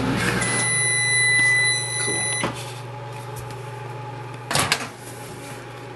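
A microwave oven's hum stops about half a second in, and the oven gives one long, steady electronic beep lasting about two seconds to signal the end of the heating cycle. A click follows as the beep ends, and there is a brief knock about four and a half seconds in.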